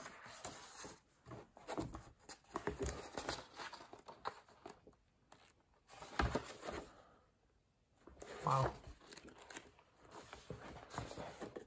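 Paper pages of a book being leafed through by hand: soft rustles and quick flicks that come unevenly, with short pauses between.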